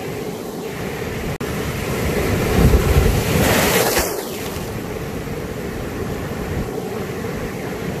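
Ocean surf washing over shoreline rocks. About three seconds in, a wave breaks close by and throws spray onto the microphone, the loudest moment, before the wash settles back to a steady churn.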